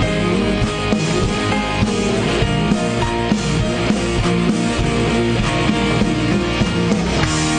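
Live band playing a song's instrumental outro, with guitar and a drum kit keeping a steady beat; near the end the beat stops and gives way to held chords.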